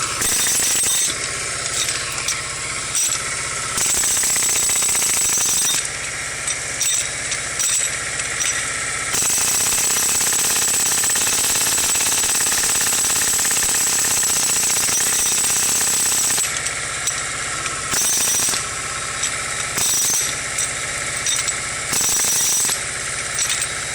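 Jackhammer hammering in stop-start bursts, with one long unbroken run of about seven seconds in the middle.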